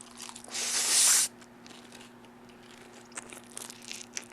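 A loud crunchy bite or tear of food close to the microphone, lasting under a second, then soft chewing and mouth clicks near the end.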